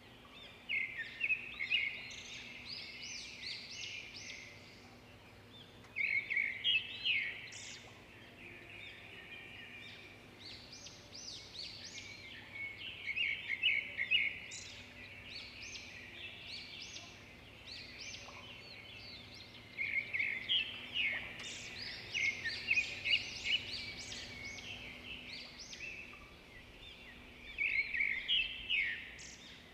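Small birds chirping and chattering in repeated bouts of quick, high calls, each lasting a few seconds with quieter gaps between.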